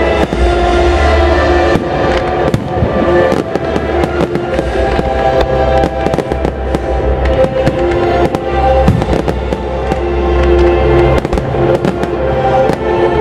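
Aerial fireworks bursting, many sharp bangs and crackles one after another, over loud music playing along with the display.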